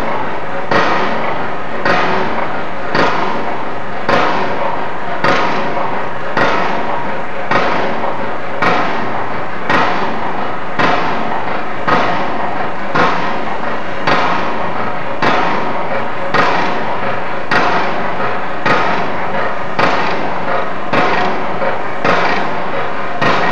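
Regular heavy impacts, about one a second, each with a short ringing tail, over a dense, steady din.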